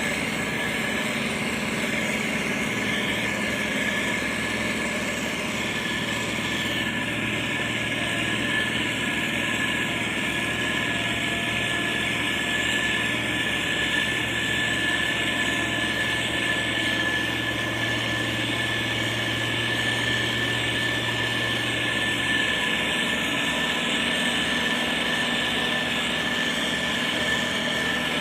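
Heavy construction machinery running steadily, with a constant high whine over the engine noise. A deeper hum joins a few seconds in and drops away well before the end.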